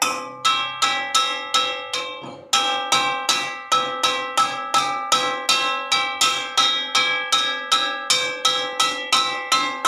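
A metal wok being struck repeatedly, about three strikes a second, each ringing on like a bell with several steady tones, with a brief pause about two seconds in.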